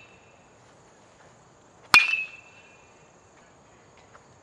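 A metal baseball bat strikes a ball once, about two seconds in: a sharp ping with a short metallic ring after it.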